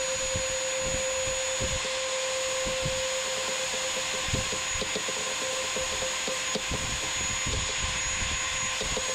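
Cordless drill running steadily at one constant whine, driving a lag screw through a steel carport base rail into a wooden board; these screws have been hard going without pre-drilling. Faint irregular low knocks sound under the whine.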